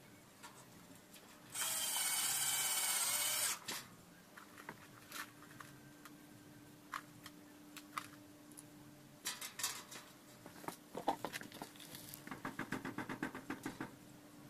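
Power drill-driver running for about two seconds on the steel angle frame, then winding down, followed by scattered clicks and handling knocks. Near the end a quick even run of ratcheting clicks.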